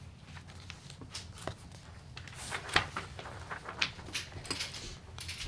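Papers being handled and shuffled, with scattered light clicks and knocks on a table and one sharper knock about halfway through.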